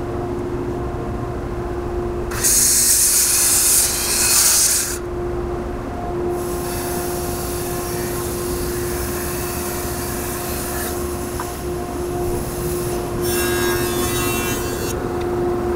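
Woodworking power tools cutting a pine 2x10 over a steady machine hum. A loud saw cut comes about two and a half seconds in, then a longer, steadier bandsaw rip, then a jointer pass near the end.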